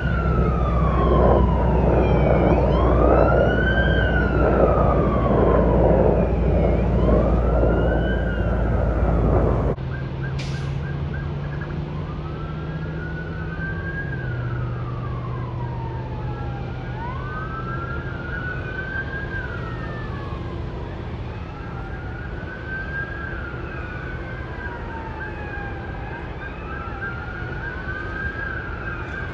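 Emergency vehicle sirens wailing, each rising and falling over a couple of seconds. A heavy rumble sits under the wail for about the first ten seconds, then drops away abruptly, leaving the sirens over a steady high tone and a low hum.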